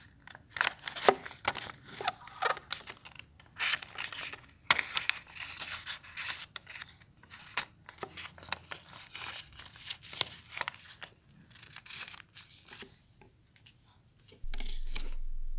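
Sheet of paper being folded and creased by hand: irregular rustling, crinkling and scraping of paper against paper and the table. Near the end a steady low hum comes in.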